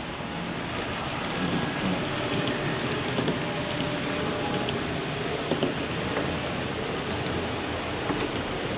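Fleischmann H0 model train running along the track: a steady whir of wheels on rails, a little louder as the train passes, with scattered sharp clicks from the rail joints.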